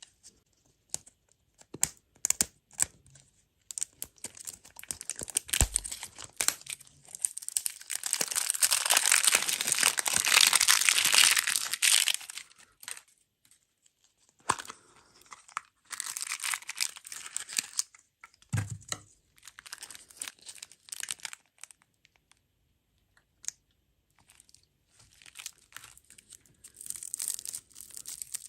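Plastic food packaging being torn open and crinkled: scattered clicks and handling noises, then a long stretch of rustling and tearing several seconds in, followed by shorter bursts of crinkling with pauses between.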